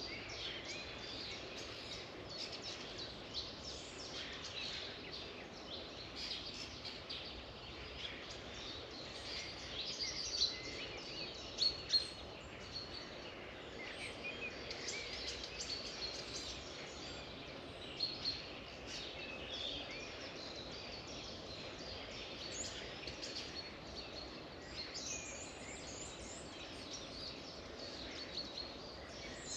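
A chorus of wild birds singing and chirping, many short overlapping calls and trills running on without a break, over a steady background hush. A few sharper, louder calls stand out a third of the way in and again a little past halfway.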